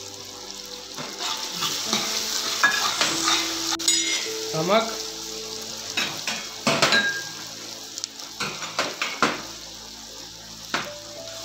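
Sliced onions frying in hot oil in a large metal pot, sizzling steadily, while a steel ladle stirs in spices and salt, scraping and clinking against the pot several times in the second half.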